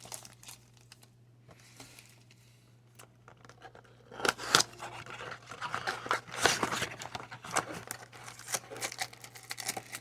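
Blaster box of trading cards being torn open, its plastic wrap and cardboard crinkling and tearing in quick sharp crackles, starting about four seconds in. A faint steady low hum runs underneath.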